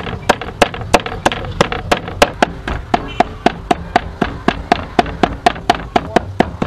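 A steel cleaver mincing meat on a round wooden chopping board: a steady run of sharp knocks, about three a second, each with a short ring.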